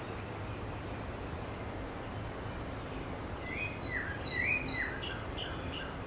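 A wren sings a quick phrase of chirping notes about three and a half seconds in, sweeping up and down and ending in a few short repeated notes, over a steady background hiss of outdoor noise.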